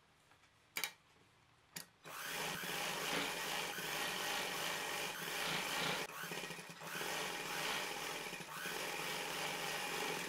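Domestic sewing machine stitching a fabric strip onto a garment edge, running steadily for about eight seconds after two short clicks.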